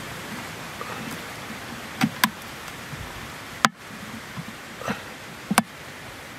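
Sharp cracks and snaps of a brittle old plastic bucket rim being broken off with pliers: two snaps about two seconds in, a louder one just past the middle, and a quick double snap near the end, over a steady hiss.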